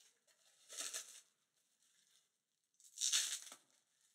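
Packaging crinkling and tearing as beer cans are unwrapped by hand: two bursts of rustling, about a second in and about three seconds in, the second louder.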